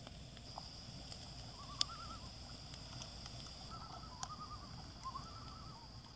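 Loons calling in the distance, with faint wavering calls repeated several times, over the occasional crackle and snap of a wood campfire.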